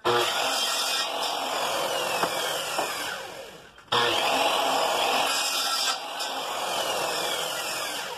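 Electric power saw cutting through bamboo pole, run twice. Each run starts abruptly, and its whine falls as the blade slows.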